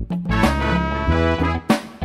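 Upbeat intro music with a steady beat, brass and a strong bass line.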